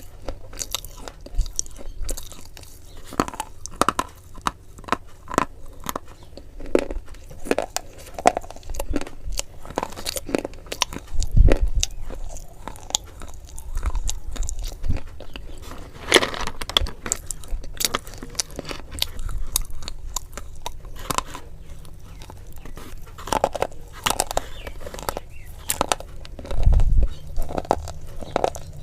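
Someone chewing and crunching food, with irregular crisp bites and chews throughout.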